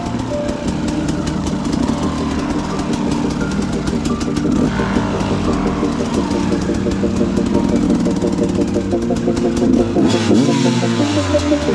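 Enduro dirt bike engine running with uneven revs that rise and fall, then drop sharply near the end.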